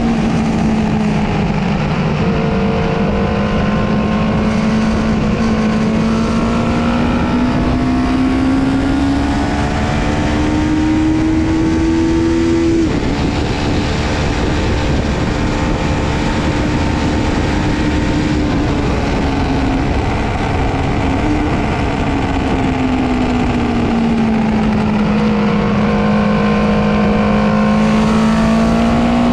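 Honda CB500 parallel-twin engine at track speed with wind rush. The revs climb steadily, drop sharply about 13 seconds in as it changes up a gear, hold steady, sink away from about 19 seconds in as it slows, and rise again near the end.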